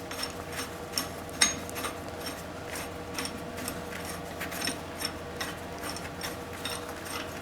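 Coil spring compressor being turned by hand on a suspension spring: a run of light, irregular metallic clicks and ticks from its threaded rod and hooks, several a second.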